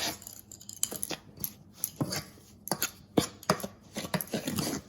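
A utensil stirring a dry flour-and-salt dough mix in a bowl, with irregular clicks and scrapes as it knocks and drags against the bowl.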